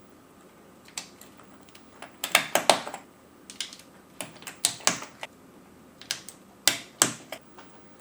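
Plastic keycaps on an Amiga keyboard clicking and tapping as keys are pressed down onto their stems, in short irregular clusters of sharp clicks.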